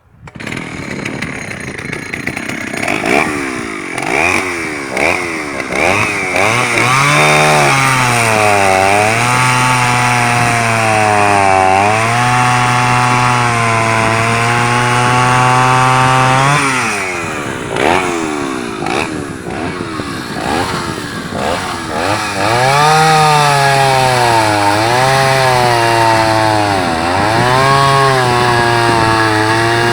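1980 Oleo-Mac 261 two-stroke chainsaw running, uneven for the first few seconds. It is then revved up and down over and over, its pitch swooping between low and high revs.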